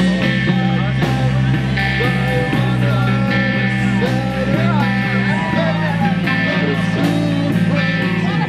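Emo rock band playing live: electric guitars and bass over a drum kit, with steady cymbal and drum hits.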